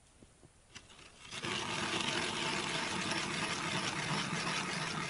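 Ice auger boring a hole through river ice: a steady grinding that starts about a second and a half in.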